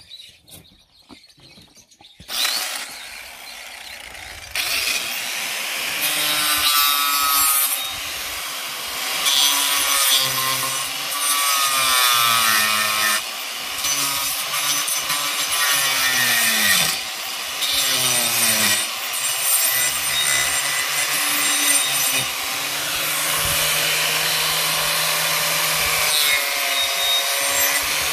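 Makita angle grinder with a carving disc cutting into the dead wood of a Chinese elm trunk. It starts about two seconds in and grows louder a couple of seconds later, its motor whine dipping in pitch each time the disc bites into the wood and rising again as it eases off.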